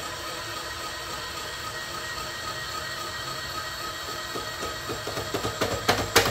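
Homemade scissor-jack awning lift being wound down on its threaded lead screw, a steady mechanical running sound. Near the end comes a quickening run of clicks and knocks as the lift nears the bottom, where a protruding roll pin strikes the lift arm.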